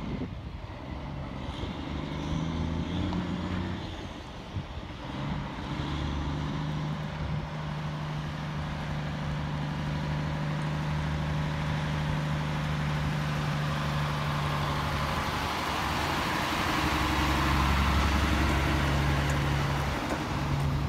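Diesel tri-axle dump truck driving toward and past at close range: a steady engine drone that grows louder, with tyre and road noise swelling as it goes by near the end.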